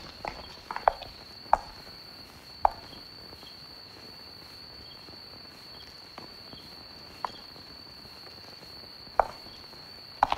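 Steady high-pitched drone of night insects, with a few scattered footsteps over the first three seconds and again from about six seconds in.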